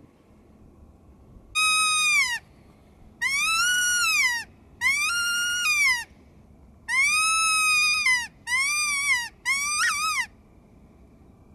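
Predator call blown to imitate coyote howls: six loud howl notes, each rising and then falling in pitch, the last three shorter with a wavering end.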